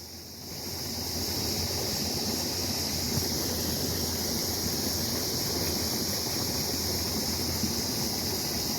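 Creek water running steadily over rocks, building up during the first second, with a constant high-pitched drone of insects above it.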